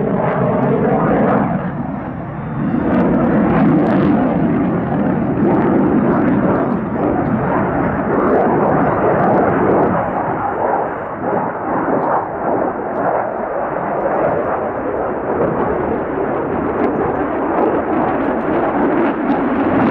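Loud jet noise from a Lockheed Martin F-35 Lightning II's Pratt & Whitney F135 turbofan during a display pass. A whine drops in pitch over the first two seconds, then a steady rush.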